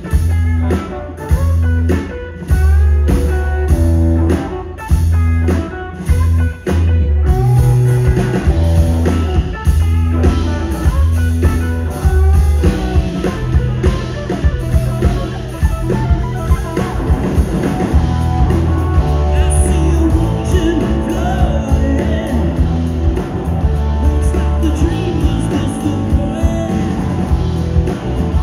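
Live rock band playing: electric guitars and drums with a heavy low end, and a woman singing. For the first several seconds the band plays short stop-time hits with brief breaks between them, then settles into a steady groove.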